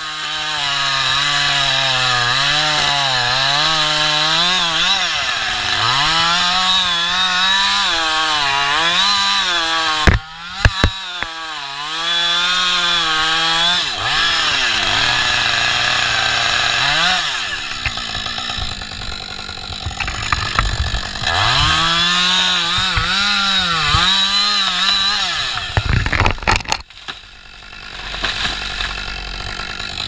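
Two-stroke chainsaw cutting through a poplar trunk, its engine pitch wavering as the chain bites in several long cuts and easing back between them. Near the end come a few sharp cracks as the cut piece breaks away, and then the saw runs more quietly.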